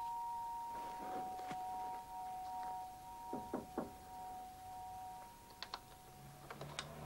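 Two-tone ding-dong doorbell chime ringing out, its high and low notes sustaining for several seconds and fading. A few soft footsteps on carpet come in the middle, and the clicks of the front-door lock and latch follow near the end.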